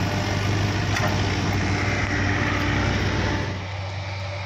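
Heavy diesel engine of logging machinery running steadily with a low hum, its level dropping about three and a half seconds in.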